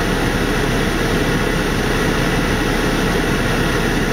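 Steady drone of an idling semi-truck diesel engine, heard inside the cab.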